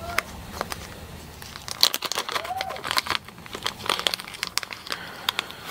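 Small clear plastic hardware bag crinkling and crackling as it is handled in the hands, busiest between about two and four and a half seconds in.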